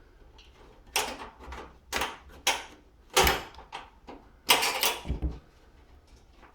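A screwdriver working a screw out of the sheet-metal top cover of a built-in oven, with the metal casing being handled: a handful of short scraping rasps, the longest cluster just past the middle.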